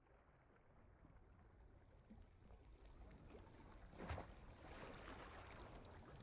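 Near silence with a faint wash of water, like gentle ocean waves, a little louder from about four seconds in.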